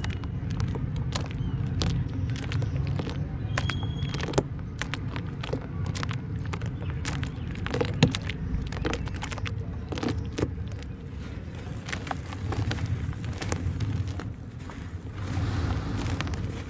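Hands squishing and kneading wet, muddy dirt in a tub of water, with short wet squelches and splats, over a steady low rumble. Near the end, dry crumbly dirt is broken apart and falls into the water with a soft crumbling hiss.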